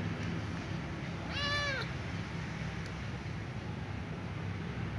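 Small ginger cat meowing once, a single call of about half a second, about a second and a half in.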